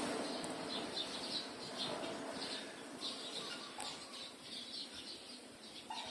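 Birds chirping: many short, high chirps coming irregularly over a steady low background hum.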